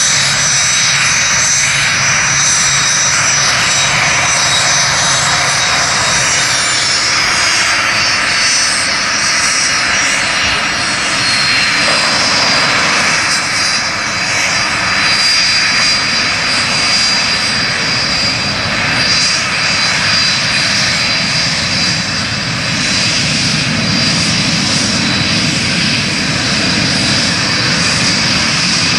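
Twin Pratt & Whitney JT15D turbofans of a Cessna Citation II running at taxi power: a steady high whine over a broad rush of engine noise. About seven seconds in the whine glides down to a lower pitch and then holds steady.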